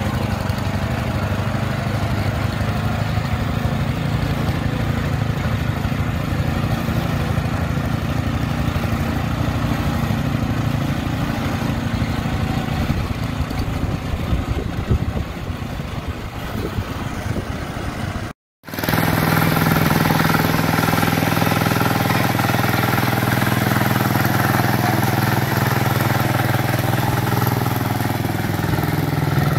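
Small garden tractor engines running at a steady speed: the Briggs and Stratton engine of a custom steel-wheeled tractor, with a John Deere 110 garden tractor running behind it. After a brief cut-out about two-thirds through, the John Deere 110's engine runs close and steady.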